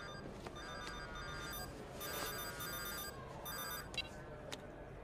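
Mobile flip phone ringing with an incoming call: an electronic ringtone sounding in short rings about once a second.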